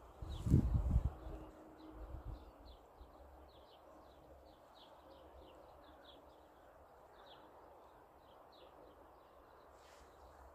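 A small bird chirping over and over, short high calls about three a second, over a faint outdoor hush. A few loud low thumps come in the first second.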